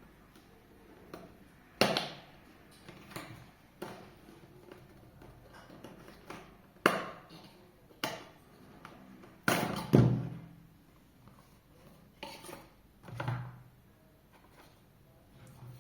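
Packaging being handled during an unboxing: irregular sharp clicks, taps and knocks of cardboard and plastic. The loudest come about 2, 7 and 10 seconds in.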